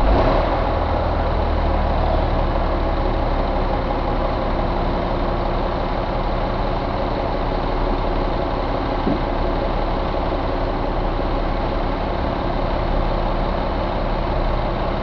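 Caterpillar 3306 inline-six diesel engine running steadily, with an even, unchanging note.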